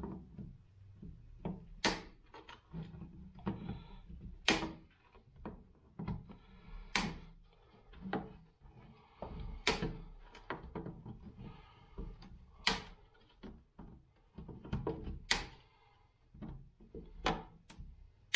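Excess zip-tie tails being snipped off a plastic milk crate: a sharp snip every two to three seconds, about seven in all, with plastic handling and rustling between the cuts.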